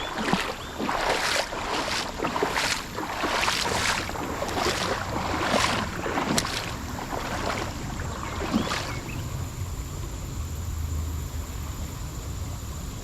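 Water sloshing and splashing in a quick series of short swishes that stop about nine seconds in, leaving a quieter steady hiss of moving creek water.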